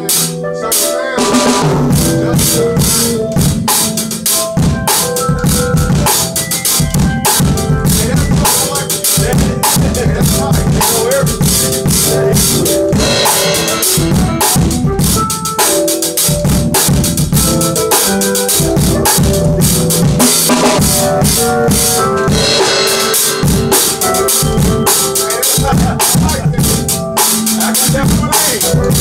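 A drum kit played in a full groove, with kick drum, snare and cymbals, coming in about a second in over steady pitched notes from other band instruments.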